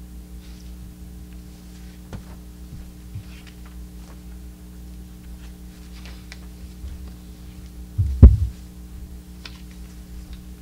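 Sheets of paper being handled and shuffled beside a table microphone: faint rustles and clicks over a steady electrical hum. About eight seconds in comes a loud, low thump, the microphone or table being knocked.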